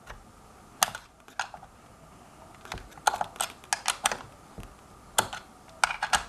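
Sharp, irregular clicks, some single and some in quick clusters, as the screws clamping a hoverboard's wheel hub motor axle into the frame are tightened by hand.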